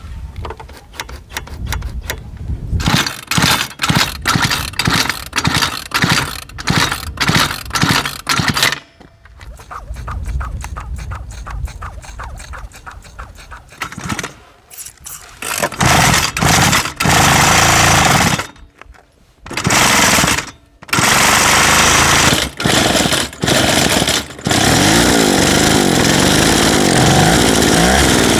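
Small two-stroke string-trimmer engine bolted to a scooter, firing in short sputtering bursts and cutting out several times. Near the end it runs continuously, its revs rising and falling.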